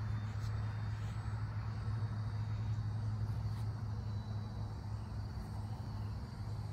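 Electric RC Corsair model plane flying at a distance, its motor and propeller making a steady low drone.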